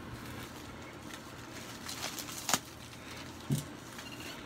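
Plastic bubble wrap rustling and crinkling as it is handled and pulled off an item, with a single sharp click about two and a half seconds in.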